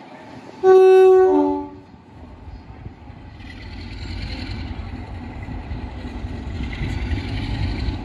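Two-tone air horn of British Rail Class 47 diesel locomotive 47593, sounded once: a high note dropping to a lower one, about a second long. Then a low diesel locomotive rumble slowly grows louder.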